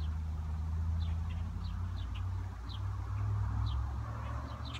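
Small birds chirping, a scattering of short, high, falling chirps, over a steady low rumble.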